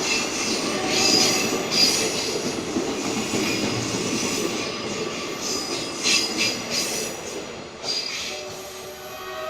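Train running with a steady rumble while its wheels squeal in high, repeated bursts on the rails. Near the end, a steady multi-note train horn comes back in.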